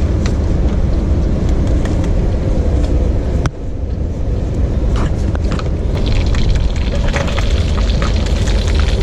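Wind rumbling on the microphone, broken by an abrupt cut about three and a half seconds in, with light clicks and clatter in the second half.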